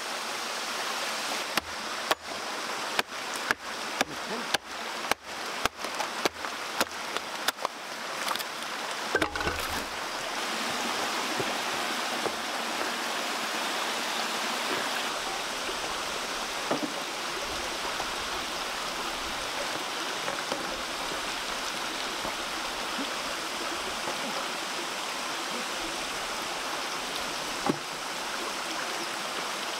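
A small rocky stream running steadily. Over it, for the first nine seconds or so, comes a quick run of sharp knocks, about two a second, as wooden bridge posts are worked, and one more knock comes near the end.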